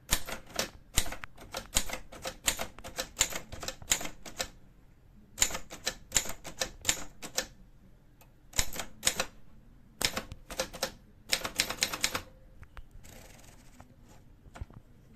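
Voss manual typewriter being typed on: keystrikes come in quick runs of clicks, separated by short pauses. A brief scraping sound follows near the end.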